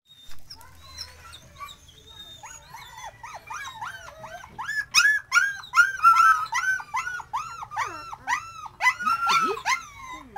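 Puppies whining and crying in quick, high, rising-and-falling whimpers, about three a second. The cries start a couple of seconds in and are loudest around the middle.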